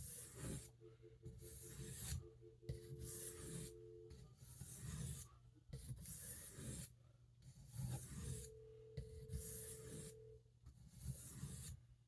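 D2 steel stockman pocketknife blade drawn across a sharpening stone in single-direction finishing strokes. It makes a faint scraping hiss about once a second, with short pauses between strokes.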